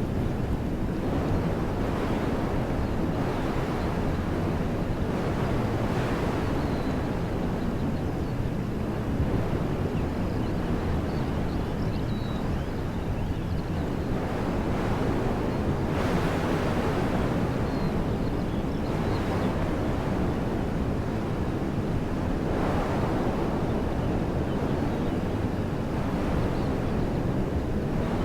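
Wind blowing through woodland trees as a steady rushing noise, strongest low down, swelling in gusts about halfway through and again a few seconds later. A few faint high bird chirps come through here and there.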